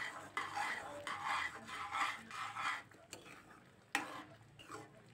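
Metal slotted ladle stirring and scraping thick semolina halwa around an aluminium kadai, in regular strokes about two a second. About halfway through the stirring goes quieter, and a couple of sharp knocks of metal follow.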